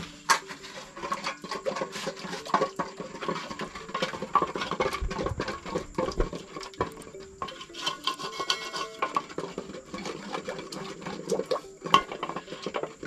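A wooden stirring stick scraping and tapping around the inside of a small metal cooking pot as a peanut butter sauce is stirred: an irregular run of scrapes and light knocks.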